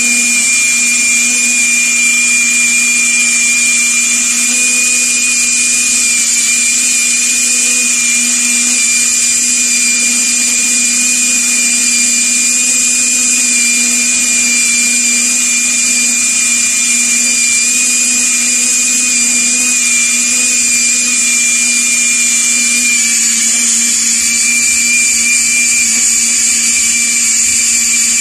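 Cordless drill running steadily with a buffing wheel in its chuck, polishing a small brass oil can held against the spinning wheel; a steady motor whine.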